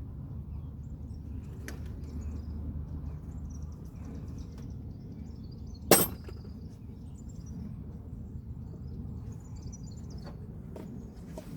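A single sharp snap about six seconds in, over a steady low rumble and faint bird chirps.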